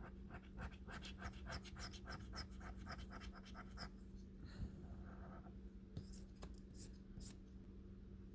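Scratch-off lottery ticket being scraped, a fast run of short scratching strokes about five or six a second for the first four seconds, then a few scattered scrapes and taps.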